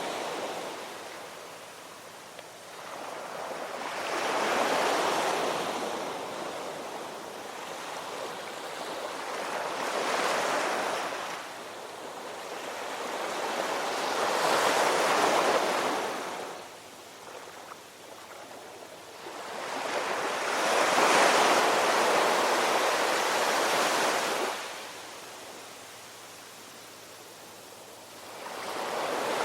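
Ocean waves breaking and washing in, a rushing surf noise that swells and fades in slow surges about every five to six seconds, with a longer surge about two-thirds of the way through.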